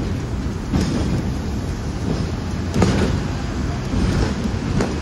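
Hong Kong double-decker tram running along its tracks, heard from on board: a steady low rumble with several sharp knocks.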